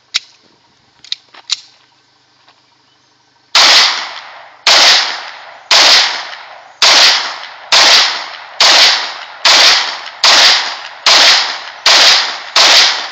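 Tokarev TT-33 pistol, chambered in 7.62×25mm, firing eleven shots at about one a second, the first about three and a half seconds in, each followed by a short ringing tail. The pistol feeds and cycles every round from an extended magazine without a stoppage. A couple of faint clicks come before the first shot.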